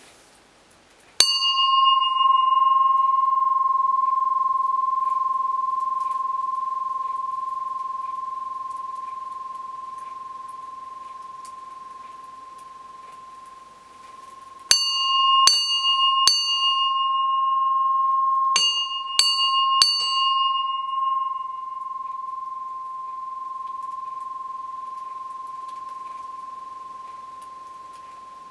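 Antique Japanese bronze vajra bell rung once, giving a long clear ring with one strong steady tone that fades slowly over many seconds. Later it is rung in two quick groups of three strikes, and the ringing again dies away slowly.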